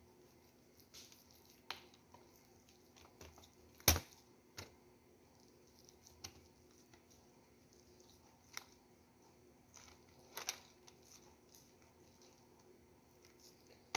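Knife slicing down the side of a stack of roasted chicken shawarma meat: a few faint, scattered cuts and ticks, the sharpest about four seconds in.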